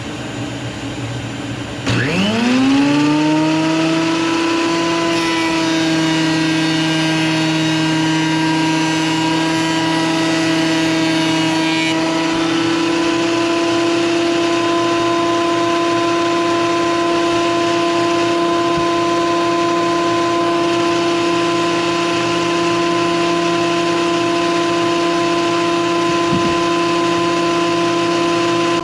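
Bauer 15-amp 12-1/2 in. portable thickness planer motor starting about two seconds in, its whine rising quickly in pitch, then running steadily at full speed.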